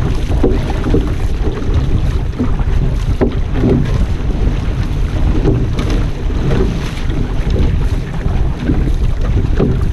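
Outrigger canoe moving under paddle through open sea: water rushing and splashing against the hull and ama in irregular short splashes, under heavy wind buffeting on the microphone.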